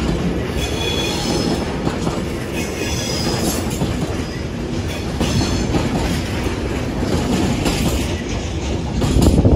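A rake of DB MLA box wagons rolling past on the track with a steady rumble and wheel clatter. High wheel squeals come and go every second or two. The sound grows louder near the end as the last wagon passes.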